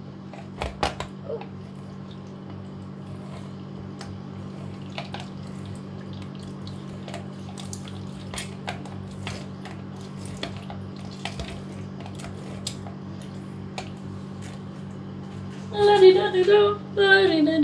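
Lemon halves being twisted and pressed by hand on a plastic citrus reamer, giving scattered small squelches, clicks and scrapes of rind on plastic over a steady low hum. A girl's voice comes in loudly near the end.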